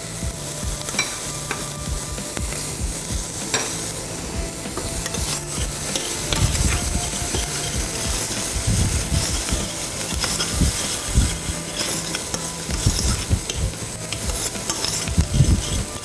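Chopped onions and a bay leaf sizzling in butter in a stainless steel saucepan, stirred with a spoon. A steady frying hiss runs throughout, and from about halfway through it is joined by irregular knocks of the spoon moving in the pan.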